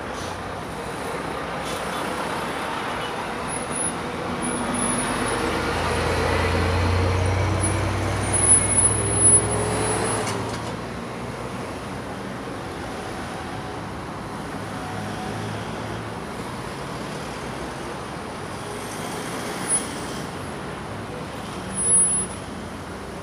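Steady road traffic of cars moving through an intersection. About a third of the way in, a louder vehicle passes close, its engine note falling as it goes by. There are a few short loud sounds then and again near the end.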